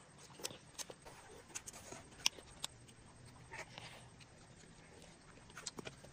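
A toddler eating passion fruit, sucking the pulp from the rind: faint, scattered wet mouth clicks and smacks.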